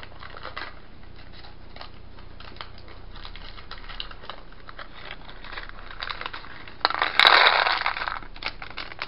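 Small foil candy-kit packet being handled. There are faint crinkles and clicks, then a loud burst of crinkling lasting about a second near the end, followed by a few light ticks.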